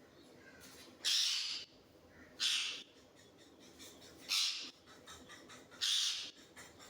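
Parrot squawking four times, harsh screeches each about half a second long, spaced roughly a second and a half apart.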